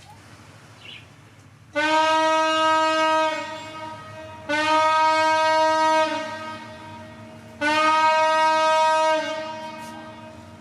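A 42.6 m CRN superyacht's horn sounding three long, loud blasts, each about a second and a half, with gaps of about a second between them. The blasts are a farewell greeting as the yacht leaves port.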